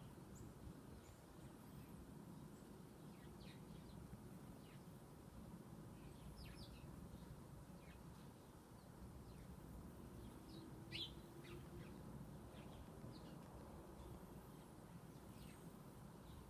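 Chickadees giving short, high chirping calls, scattered and faint, with one louder chirp about eleven seconds in, over a steady low background rumble.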